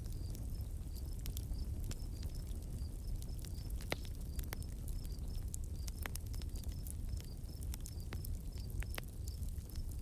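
Outdoor nature-sounds ambience: a steady low rumble with scattered light clicks and pattering, and a short high chirp repeating two or three times a second, like an insect or small bird.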